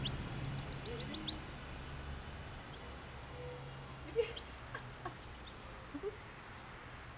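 A quick run of about eight high, falling chirps, then a shorter run about five seconds in, with a few soft low clucks from a chicken in between.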